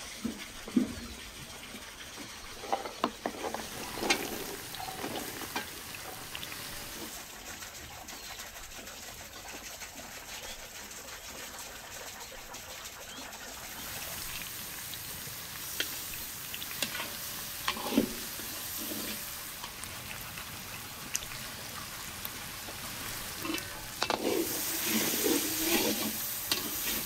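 Food frying and sizzling in hot oil in a cooking pot, with a utensil stirring that gives scattered clicks and scrapes. The stirring gets louder and busier near the end.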